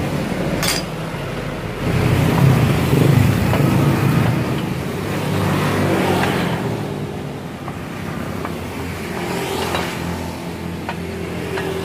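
Engine noise of a passing motor vehicle that swells and then fades, with a few light metal clicks.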